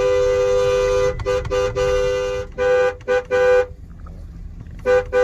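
Two-tone vehicle horn honking: one long blast of about a second, then a quick run of short honks. The honking picks up again near the end.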